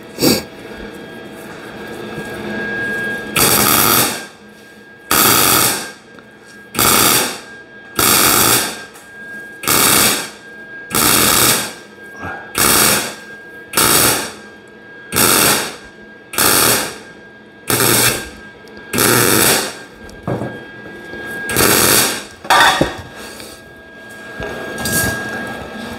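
MIG welder laying a row of short tack welds along the edge of a sheet-steel patch piece: more than a dozen separate bursts of welding noise, each under a second long, about one every second and a half, with the last ones near the end more spread out.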